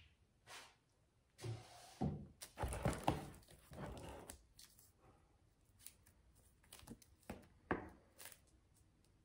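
Books and their packaging being handled: rustling and crinkling, with a few soft thuds as books are picked up and set down. The handling is busiest in the first half, with a few short rustles near the end.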